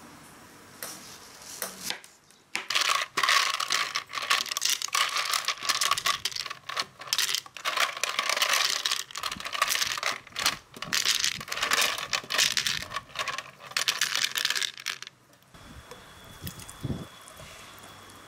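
Ice cubes clattering hard against the sides of a plastic blender jug with mango pieces, a dense run of sharp clinks lasting about twelve seconds that stops suddenly.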